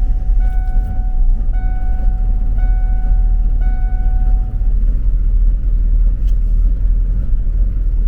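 Camper's V8 engine, which the owner believes is a 460 big block, running rough just after a cold start in sub-zero weather. A dashboard warning chime beeps about once a second over it and stops about halfway through.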